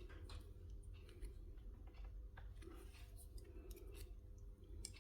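Faint scattered clicks and light scraping of hand work, pressing cement into a soldering-iron heating element, over a low steady hum.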